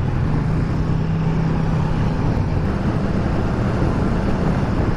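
Honda CBR600F inline-four engine running steadily at road-cruising speed, with wind rushing past.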